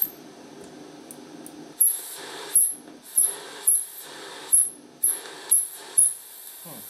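Hiss and a high whistle from an old Arrow EQ1800 graphic equalizer playing through an amplifier with no music, the whistle swelling in short bursts about twice a second as its sliders are moved. The owner finds the whistle on one channel only and calls it a noisy equalizer.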